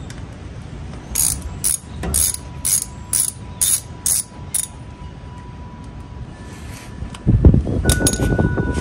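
Clicking of a wrench working loose the top Allen-head plug on the lower unit of a 1978 Evinrude 85 HP outboard, about nine sharp clicks at roughly two a second. A louder low rumble starts near the end.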